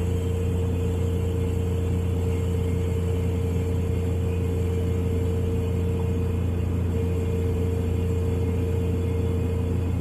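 Refrigerator running: a steady low hum with a fainter, higher steady tone over it, unchanging throughout.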